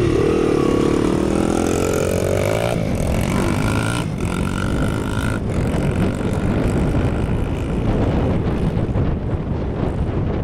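Motocross bike engines running at the start line. One engine's pitch falls and then climbs again in the first few seconds as it is revved, followed by a steadier engine tone that gives way to a rough, even rumble.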